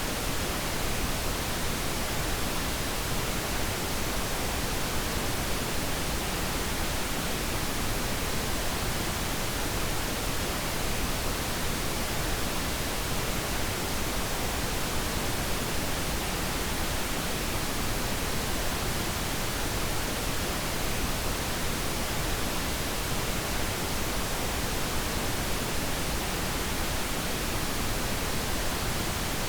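Steady, unchanging hiss of generated noise played as a sleep aid, even across low and high pitches with no events in it.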